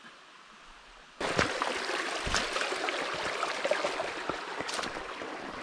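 Small rocky brook running and babbling over stones close by, starting abruptly about a second in after a faint, quiet start, with a few low knocks in the water noise.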